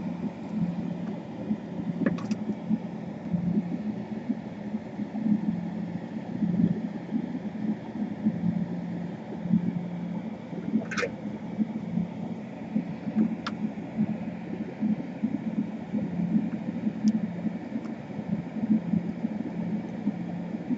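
A steady low hum that wavers slightly in loudness. A few faint light clicks, about two, eleven and thirteen seconds in, are likely small tool contacts at the workbench.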